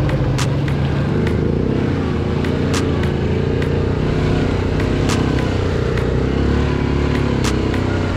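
ATV engine running at a steady, moderate throttle, heard from on board as the quad drives along a muddy dirt track. Its pitch wavers slightly, with scattered sharp clicks over the engine.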